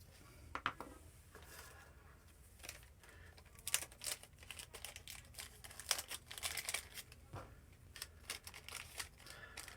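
A plastic bag crinkling as it is handled, a quiet run of irregular crackles that grows busier about a third of the way in.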